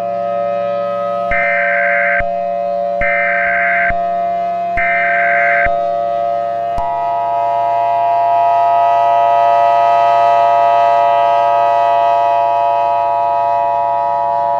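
Emergency Alert System broadcast tones: three short bursts of warbling digital header tones about a second and a half apart, then, about seven seconds in, the steady two-tone EAS attention signal. A civil defense siren holds steady underneath.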